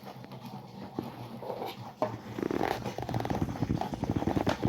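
A dog growling: a low, rapidly pulsing rumble that starts about two seconds in and grows louder.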